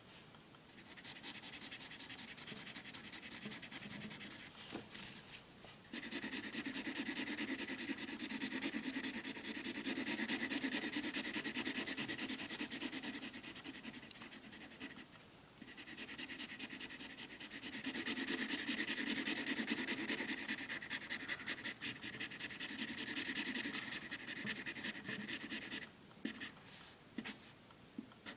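Felt tip of a Staedtler permanent marker scrubbing rapidly back and forth on paper as a solid black area is filled in. It comes in long runs with a pause of about two seconds halfway, and a few short separate strokes near the end.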